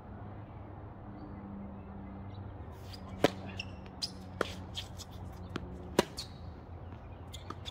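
Tennis rally on a hard court: sharp pops of racket strings striking the ball, the loudest about three seconds in and again about six seconds in, with lighter ball bounces between them. A steady low hum runs underneath.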